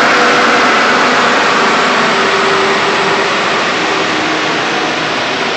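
Mustang chassis dyno rollers and the tuned MkVI VW GTI's front tyres spinning down after a full-throttle pull, with the engine at idle: a loud steady rush that slowly fades as the rollers slow from about 48 to 30 mph.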